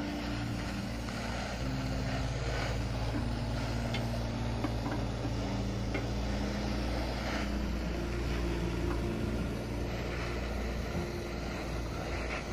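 Brazing torch flame hissing steadily as it heats the copper pipe joints on a split air-conditioner's compressor, over a steady low droning hum.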